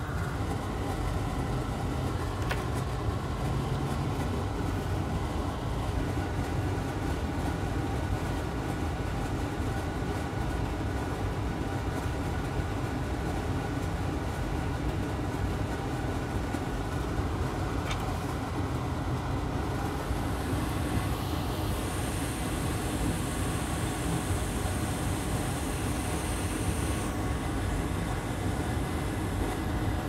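Steady low background noise, like a fan or machinery running, with a faint high hiss joining in from about twenty to twenty-seven seconds in.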